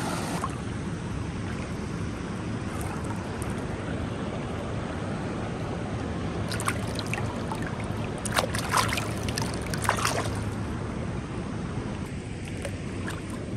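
Strong stream flow below a dam rushing over rocks, a steady rush of water. A few short sharp sounds stand out between about six and ten seconds in.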